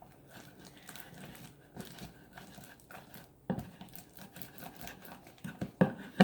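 Thick, sticky homemade slime being worked and kneaded by hand, giving faint crackling and small sticky pops, with louder squishes about three and a half seconds in and near the end. It is at the stage where extra activator has thickened it but it is still sticky.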